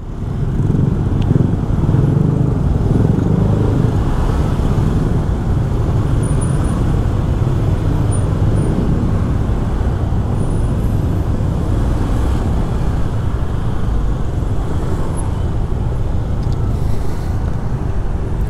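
Slow, congested street traffic of motor scooters and cars: a steady low rumble of engines creeping along in a jam.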